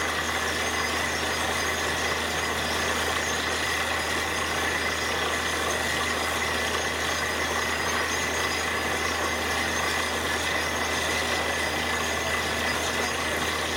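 Truck-mounted borewell drilling rig and its engine-driven air compressor running steadily while drilling: a continuous engine drone under an even hiss, with no change in pace or load.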